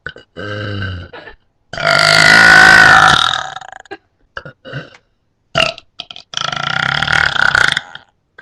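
A person burping repeatedly. A short burp comes first, then a long loud one of nearly two seconds, a few short burps, and another long burp near the end.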